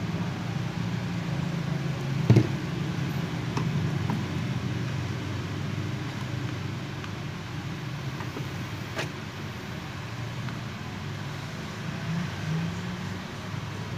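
Steady low background rumble, like distant traffic, with a few light clicks. The sharpest click comes a little over two seconds in.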